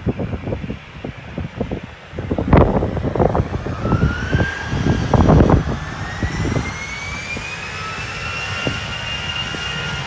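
Jet aircraft engines spooling up: a whine that rises in pitch from about three and a half seconds in and then holds steady, the build-up of thrust for a takeoff roll. Gusts of wind rumble on the microphone underneath, loudest in the first half.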